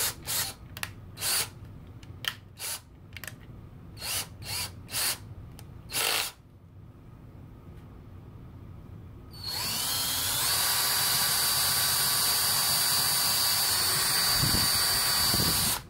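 A series of short, sharp clicks over the first six seconds, then a DeWalt 18V cordless drill starts about nine and a half seconds in and drills through a pipe with a 1/4-inch bit: a loud, steady run with a high whine for about six seconds, stopping suddenly near the end.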